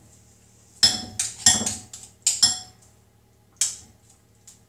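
A metal spoon clinking and scraping against a glass mixing bowl while a stiff, dry brownie mixture is worked. Several sharp, ringing clinks come between about one and two and a half seconds in, and one more about a second later.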